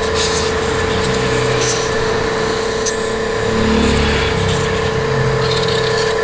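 An engine running steadily with a constant hum, with a few light metallic clicks and scrapes of a screwdriver working on a small motorcycle carburetor.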